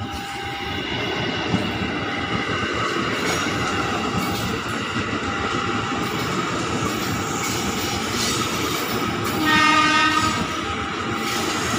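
An ex-JR 205 series KRL Commuter Line electric train passing close by, its wheels and running gear rumbling and clattering steadily over the rails. A single horn blast of about a second sounds near the end.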